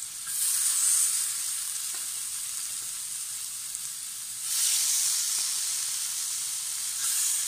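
Marinated chicken tikka pieces sizzling in ghee on a hot tawa. The sizzle flares up louder each time a new piece is laid down: about a third of a second in, again about four and a half seconds in, and a little near the end.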